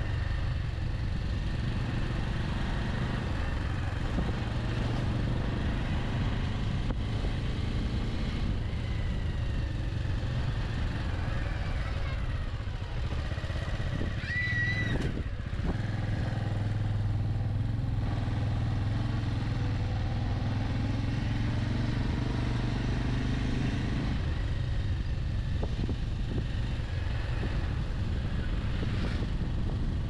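Single-cylinder engine of a Bajaj Avenger 160 Street motorcycle running steadily at riding speed, with road and wind noise. A brief high-pitched tone cuts in about halfway through.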